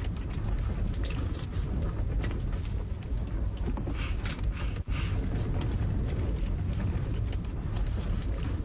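Strong wind buffeting the camper van, a steady low rumble, with scattered light clicks and taps.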